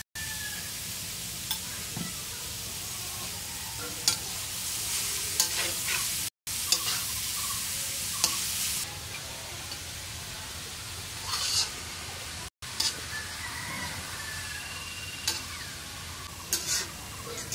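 Shredded raw papaya frying in oil in an iron karahi, sizzling steadily as it is stirred, with scattered scrapes and clinks of the spatula against the pan. The sizzle drops out for an instant twice.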